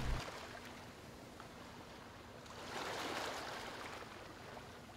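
Soft ocean surf washing, with one wave swelling and breaking about three seconds in, then easing back.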